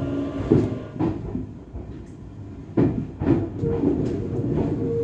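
Tokyu 1000 series electric train running past close by, its wheels knocking over rail joints in two pairs of sharp clacks about half a second apart, with a steady whine joining in about three and a half seconds in.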